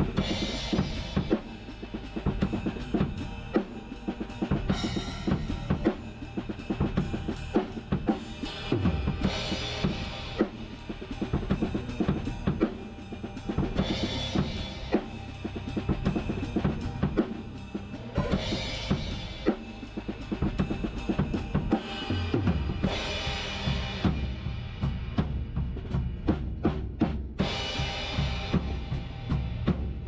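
Acoustic drum kit played through a steady song groove of kick and snare, with a cymbal crash about every four to five seconds. Near the end comes a quick fill of drum hits without cymbals, landing on a crash. It is recorded close up on an action camera's built-in microphone.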